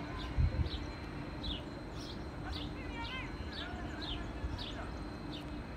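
A small bird repeating a short, high, falling chirp about twice a second, over a low outdoor rumble, with a single low thump just under half a second in.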